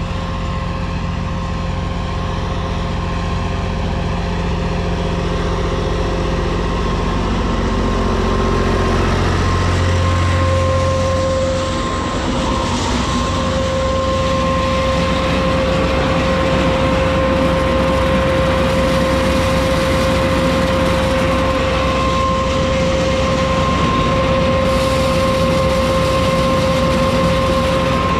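Türk Fiat 480 tractor's three-cylinder diesel engine running steadily, with a steady high whine that grows stronger about ten seconds in.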